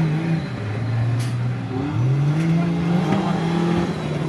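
Off-road competition vehicle's engine revving. It holds a steady note, rises about two seconds in, holds higher, then drops back near the end as the throttle is worked through the dirt course.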